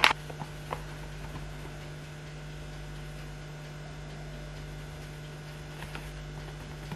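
Steady low electrical hum, with a sharp click at the start and a few faint ticks.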